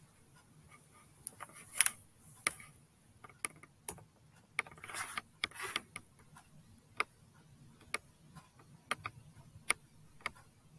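Scattered sharp clicks and taps at irregular intervals, with a short rustling stretch about halfway through.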